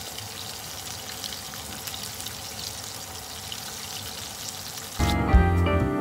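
Pieces of starch-coated chicken deep-frying in hot oil: a steady sizzle with small crackles. About five seconds in, music with guitar and drums cuts in abruptly.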